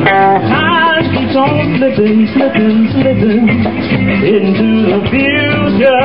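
Live R&B/soul band playing loudly, with singing over electric guitar, drums and a keytar.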